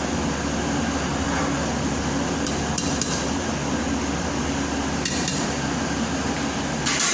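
A few sharp metal clinks of a utensil against a pot, in a cluster about two and a half to three seconds in, again around five seconds and near the end, over a steady low hum.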